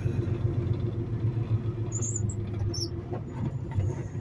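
Semi-truck's diesel engine running low and steady as the truck creeps forward at walking pace, heard inside the cab. A few short high squeaks come about halfway through.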